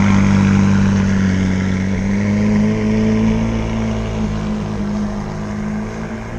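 Supercar engine running at low revs as the car drives slowly away, its sound gradually fading.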